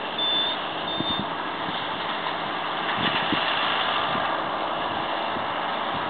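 Tractor and McHale Fusion 2 round baler-wrapper running steadily in the field. A high electronic beep sounds a few times in the first second, then stops.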